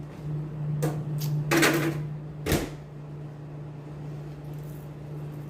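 A glass of iced Coke being handled: two short clicks, a brief rattle, then a single knock as the glass is set down on the table, over a steady low hum.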